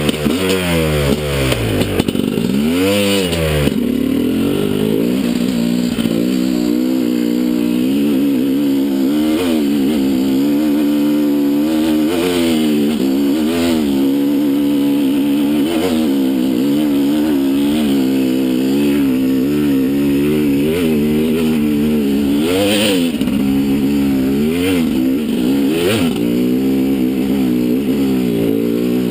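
Sherco enduro motorcycle engine running hard on a trail ride, its pitch rising and falling constantly as the throttle opens and closes, with a sharp rev up and back down about three seconds in. A couple of sharp knocks sound in the second half.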